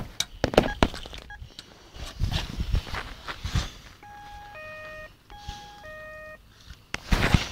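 Electronic two-note beeping: a higher beep then a lower one, each about half a second, the pair played twice. Scattered knocks at first, rustling, and a louder burst of rustling near the end.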